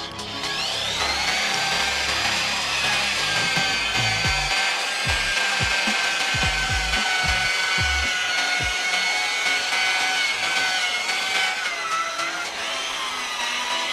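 Small electric power tool motor whining at high speed. It spins up in the first second, holds a steady pitch with irregular low knocks, and its pitch dips briefly near the end.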